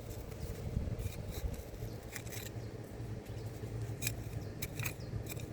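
Small hand shovel scraping and digging in garden soil: a handful of short, separate scrapes over a steady low rumble.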